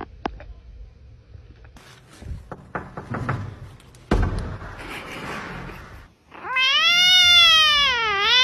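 A kitten gives one long, loud meow that rises and then falls in pitch, dipping and rising again just before it cuts off. Earlier there is a thump followed by about two seconds of scuffling.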